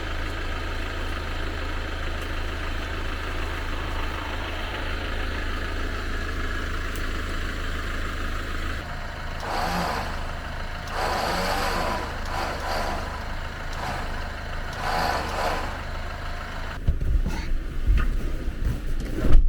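Off-road 4x4's engine running steadily under load on a stony climb, with patches of rushing, scrabbling noise in the middle and heavier knocks near the end. The drive is going to a single spinning wheel on the loose stones.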